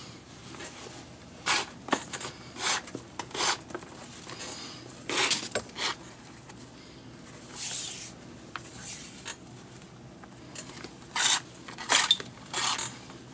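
Leather lace drawn through the lacing holes of a Mizuno baseball glove's trapeze web: a series of short scratchy pulls, about a dozen, some coming in quick pairs.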